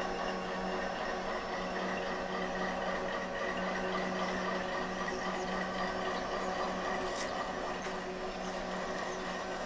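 Diesel freight locomotive idling: a steady engine drone with a constant low hum and a fainter high steady tone.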